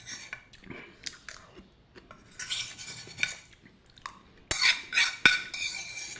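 A metal utensil scraping and clinking against a metal pan of noodles, with light scrapes, then a run of loud ringing clinks about four and a half seconds in.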